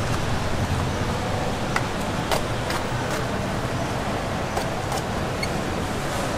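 Steady hum of street and market background noise with traffic, broken by a few scattered light clicks and knocks.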